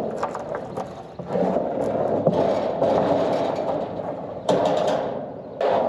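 Electric vehicle winch motor running under load as it pulls a log up onto a trailer. It starts about a second in, runs steadily, and cuts out briefly near the end before starting again.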